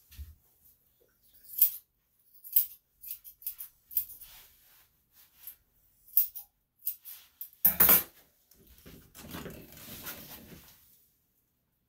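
Grooming scissors snipping a dog's leg and foot hair in short, irregular cuts. About eight seconds in there is a louder knock as the scissors are set down on the tabletop, followed by a couple of seconds of soft rustling.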